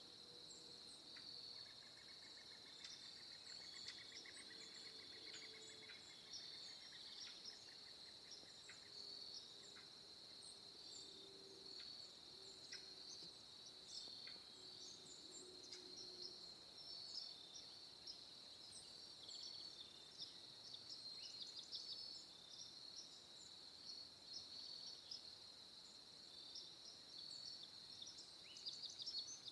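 Faint outdoor ambience: a steady high insect chirring throughout, with scattered short bird chirps. A faint low drone fades out about halfway through. The crawling slug itself makes no audible sound.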